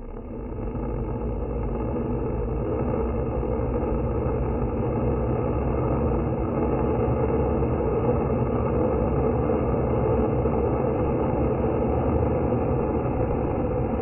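Juvenile turkey vultures hissing in defence, slowed down so the hiss becomes a long, deep, steady rushing noise.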